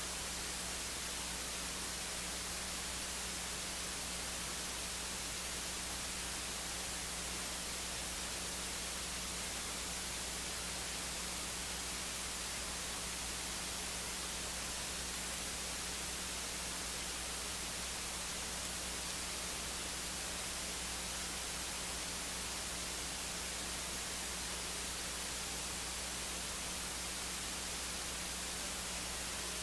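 Steady electronic hiss with a faint low hum underneath, unchanging throughout, from the audio feed and no other sound.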